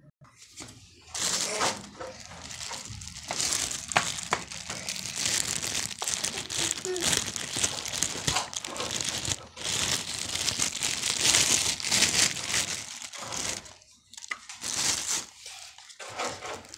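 Steady crinkling and rustling with scattered sharp clicks, broken by a short pause about thirteen seconds in.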